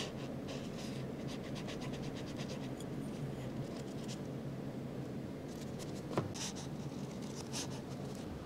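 A chopstick poking and twisting into the crisp shells of baked choux puffs, a run of fine scratchy crackles, a short pause, then a second run. A sharp click about six seconds in.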